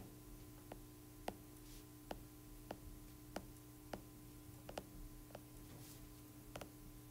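Stylus tip tapping on an iPad's glass screen while dots are drawn one by one: about a dozen faint, sharp clicks at uneven spacing, over a low steady hum.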